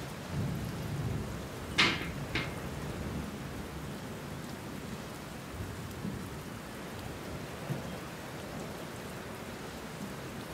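Steady rain hiss with a low rumble during the first two seconds, and two sharp clicks about two seconds in.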